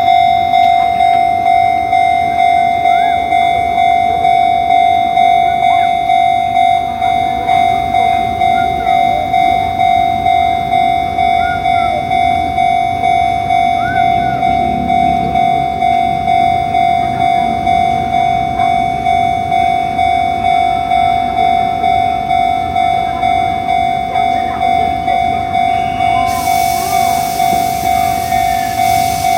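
Japanese level crossing warning bell ringing steadily with an even, repeating clang of about one and a half strikes a second. A hissing noise joins in near the end.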